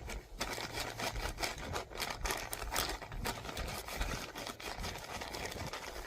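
Microfiber rag scrubbing soot off a fabric stove bag that has been sprayed with Simple Green: quick, irregular rubbing and scratching strokes.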